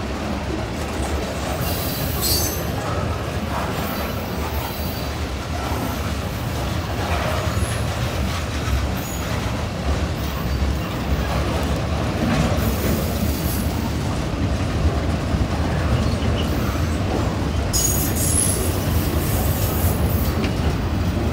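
Loaded freight cars rolling past at close range over a grade crossing: a steady rumble of steel wheels on rail, with short high wheel squeals about two seconds in and again near the end.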